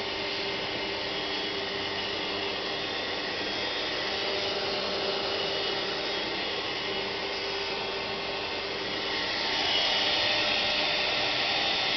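CNC router spindle running steadily as its bit cuts, a continuous whine and hiss that grows louder and brighter about nine and a half seconds in.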